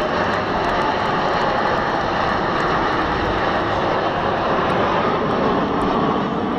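Engine noise from a close formation of Aermacchi MB-339 jet trainers flying past, loud and steady throughout.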